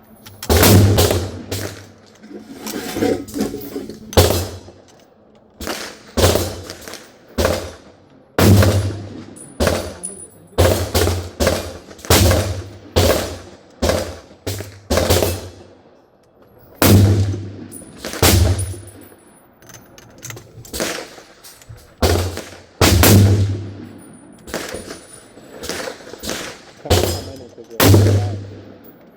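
Repeated gunshots with echoing tails, roughly one every one to two seconds and of varying loudness, about twenty over the stretch.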